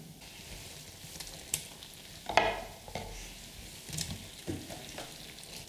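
Stew sizzling steadily in a pan on an electric hob, with a sharp knock about two and a half seconds in and a few lighter clicks from the pan being handled.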